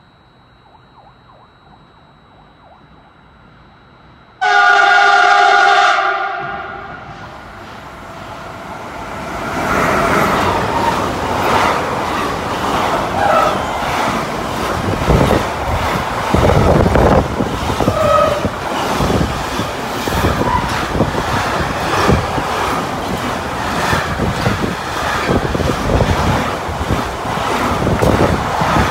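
Freight train horn sounds once, about a second and a half long, then the train comes up and runs through close by: a steady rumble with the clatter of wheels over rail joints as intermodal wagons loaded with lorry trailers pass.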